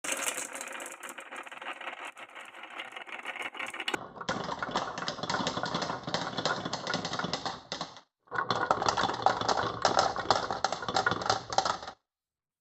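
Marbles rolling and clattering down a wooden marble run, a dense rattle of rapid clicks. It breaks off briefly about four and eight seconds in, then stops shortly before the end.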